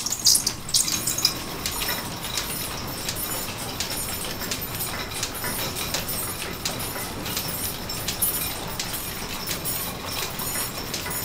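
Overhead line shaft running, driven by a two-horsepower Wagner electric motor: flat leather belts turning on large pulleys with a steady rumble and a regular clicking of about two ticks a second.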